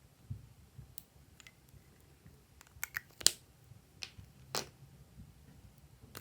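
Glossy slime being worked by hand, giving a scattered handful of sharp wet clicks and pops, the loudest about three seconds in.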